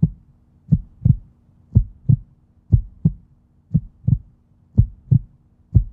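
Heartbeat sound effect: low double thumps in a lub-dub rhythm, about one pair a second, over a faint steady hum.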